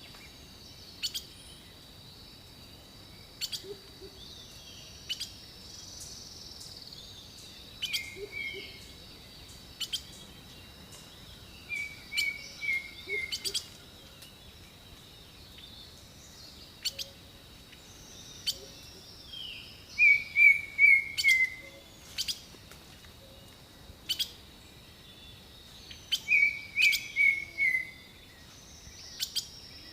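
Jungle birdsong: several birds calling, one repeating a quick phrase of three to five slightly falling notes every few seconds, loudest about two-thirds of the way through and again near the end. Sharp high chips and falling whistles come between the phrases over a steady high tone.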